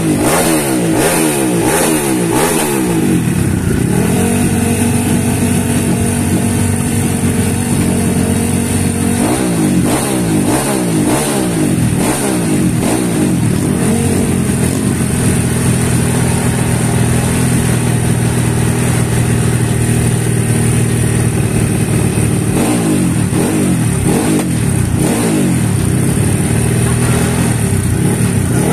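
Motocross bike engine revved while the bike stands on its paddock stand: bursts of quick throttle blips, pitch rising and falling, near the start, in the middle and near the end, with long spells of steady held revs in between.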